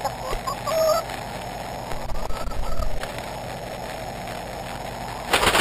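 A hen clucking: a few short rising calls in the first second and one more about two seconds in, over a steady hiss. A short loud burst of noise comes near the end.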